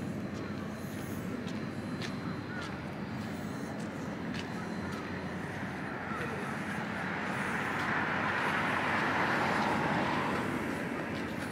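Outdoor street ambience: a steady background hum with faint scattered ticks, and a rush of noise that builds and fades in the second half, typical of a vehicle passing.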